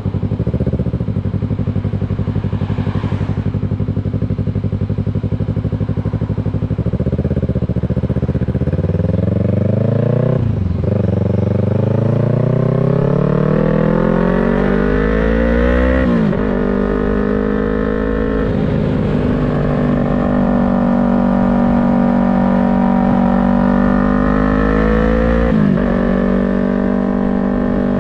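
Yamaha MT-03's parallel-twin engine running steadily at low revs, then accelerating through the gears. Its pitch climbs, drops sharply at upshifts about ten and sixteen seconds in, then holds a steady cruise with brief dips near the middle and the end.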